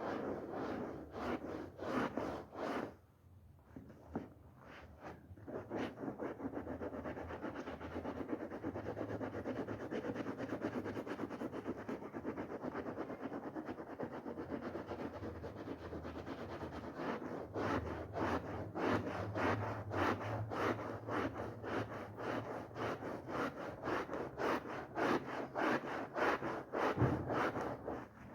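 Rapid, repeated scrubbing strokes on a wet, soapy rug, scratchy and rubbing. There is a short lull about three to five seconds in, and the strokes grow stronger and more distinct in the second half.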